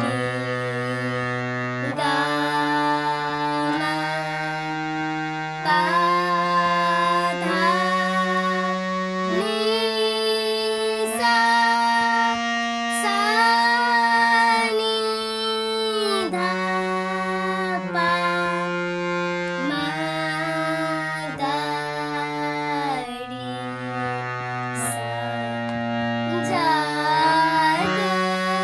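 Harmonium playing a slow melody in Raag Bhairav, its reeds holding each note and stepping from note to note, with a girl's voice singing the chhota khayal along with it and sliding between notes in places.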